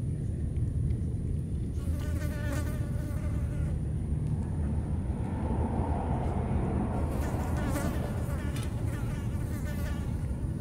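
A flying insect buzzing close by, twice, each time for about two seconds, its pitch wavering as it moves, over a steady low rumble.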